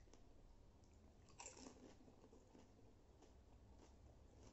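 A filled pani puri's crisp shell crunching as it is bitten, about a second and a half in, followed by faint chewing.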